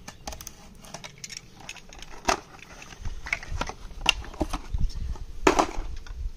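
Unpacking noise from a Kärcher oscillating sprinkler: paper and cardboard packing rustling and plastic parts clicking as they are handled, with a sharp click about two seconds in and a louder rustle about five and a half seconds in.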